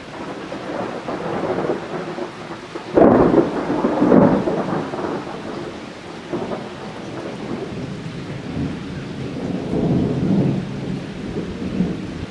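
Thunder rumbling over the steady hiss of falling rain, with a sharp, loud clap about three seconds in and a second peak a second later, then a rolling rumble that swells again near the end.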